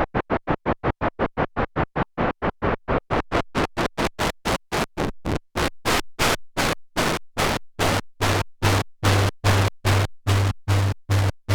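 Behringer MS-1 analog synthesizer playing a fast sequenced run of short, noisy staccato notes. The notes start about six a second and spread out to about three a second, and a heavy low bass note joins each hit from about eight seconds in.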